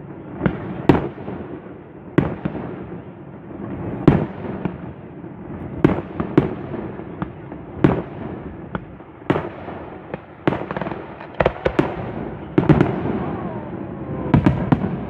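Fireworks display: about a dozen sharp bangs from bursting shells at uneven intervals, one every second or two, over a continuous rumbling noise, with several bangs close together near the end.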